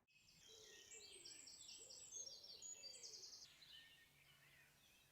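Faint songbird song: quick runs of high, rapidly repeated notes with a few lower gliding notes beneath, fading out about three and a half seconds in.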